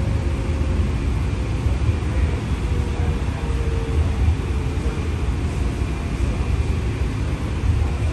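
Ride noise inside a CityLYNX Gold Line streetcar under way: a steady low rumble from the running gear, with faint drawn-out whining tones that drift slightly in pitch.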